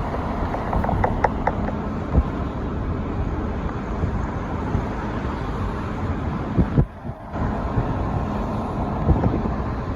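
Steady road traffic noise with wind on the microphone, briefly dropping out about seven seconds in.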